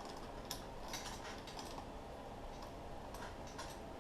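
A few light, irregular metal clicks and taps from handling the drive chain on the sprocket.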